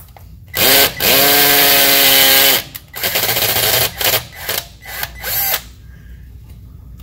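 Cordless drill driving a thread tap through the bolt holes of a driveshaft flange to clean out the old threads. The motor spins up with a rising whine and runs steadily for about a second and a half, then runs again in several shorter trigger pulls.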